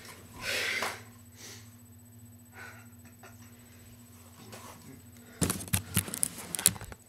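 Handling noise: a short rush of noise about half a second in, then a quick run of clicks and knocks near the end as a cracked plastic TV remote is handled.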